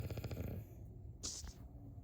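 A sleeping person snoring: a fluttering, rattling snore that fades out about half a second in, then a brief high hiss of breath near the middle.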